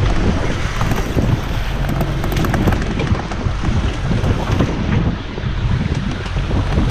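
Wind buffeting the microphone on a boat at sea, over the rumble of the boat and the slap of rough water.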